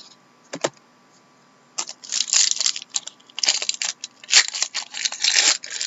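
Trading cards and foil pack wrappers being handled: a single click, then a few seconds of scratchy crinkling and rustling in several clusters.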